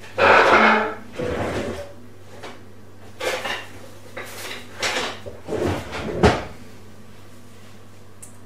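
Kitchen clatter from things being handled out of view: a run of irregular knocks and bumps, the sharpest a little past six seconds in.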